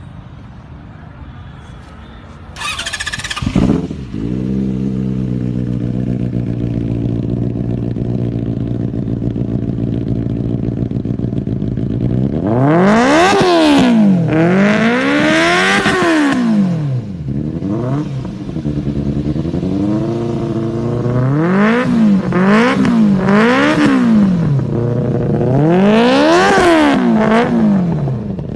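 Benelli 600i inline-four engine starting about three seconds in and settling into a steady idle, then revved again and again with blips of the throttle, the pitch rising and falling sharply on each, several of them in quick succession in the second half.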